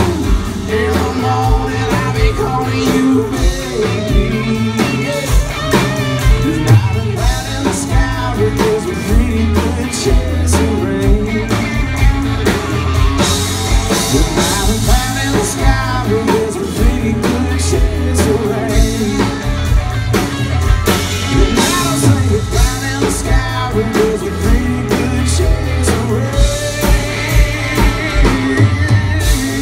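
Live rock song: a male singer with strummed acoustic guitar, backed by a drum kit keeping a steady beat.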